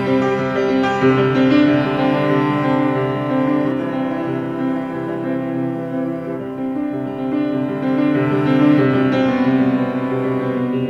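Background instrumental music in a piano sound, held chords changing slowly.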